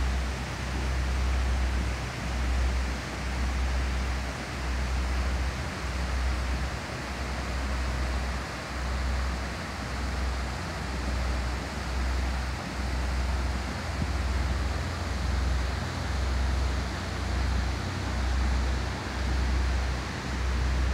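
Wind buffeting the microphone in uneven gusts, over a steady rushing hiss.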